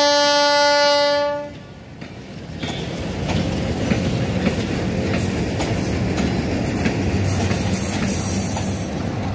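A DL560C (WDM-3A type) diesel-electric locomotive sounds a steady horn note that cuts off about a second and a half in. It is followed by the low, steady running rumble of the approaching locomotive, which builds up with scattered clicks from the rails.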